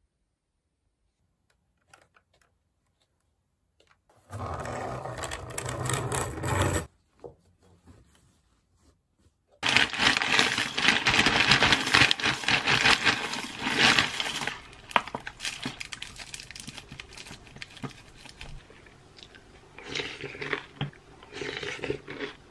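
Dry cereal poured from a crinkling foil bag into a wooden bowl: a loud, rattling pour of about five seconds, then quieter rustling and small clinks. A shorter, separate noise comes about four seconds in.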